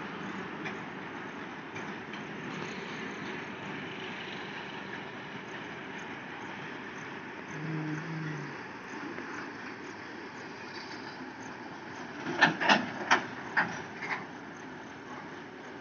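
Car-carrying freight train rolling past, a steady rumble of steel wheels on the rails. About three-quarters of the way through come five loud, sharp clacks in quick succession as the wagon wheels cross a rail joint.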